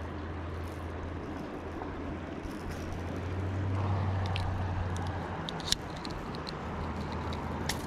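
Steady rush of shallow river water under a low, steady rumble that swells about halfway through. Near the end come two sharp clicks as steel pliers work a jerkbait free of a smallmouth bass's mouth.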